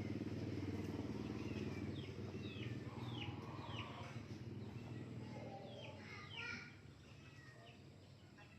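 A bird chirping over and over in short, falling calls, over a low steady hum that fades about two-thirds of the way through.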